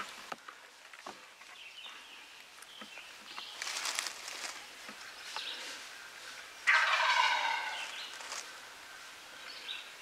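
Wild turkey gobbler gobbling: one loud, rapid rattling call lasting just over a second, about two-thirds of the way through.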